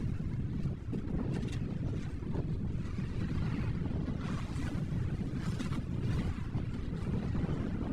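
Steady low rumble of wind buffeting the microphone, with sea noise, aboard a fishing boat.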